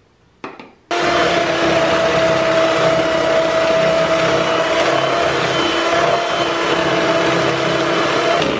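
Electric hand mixer switched on just under a second in, its motor running steadily with a constant whine as the beaters whip eggs and sugar together in a plastic bowl, beating them until creamy. A short knock comes just before it starts.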